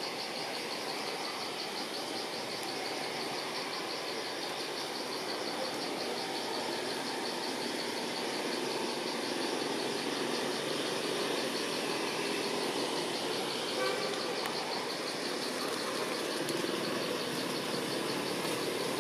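Outdoor forest ambience: insects trill high with a rapid, even pulse over a steady rumble of distant road traffic, which swells a little about halfway through.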